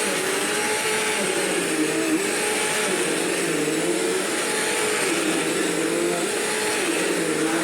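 Bissell CleanView bagless upright vacuum running steadily over carpet, its motor hum wavering slightly in pitch as it is pushed back and forth.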